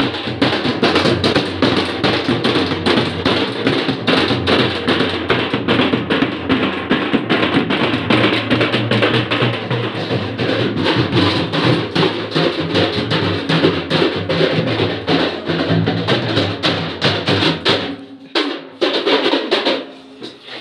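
Several drums, a large bass drum among them, beaten together in a fast, unbroken rhythm; the drumming drops away near the end.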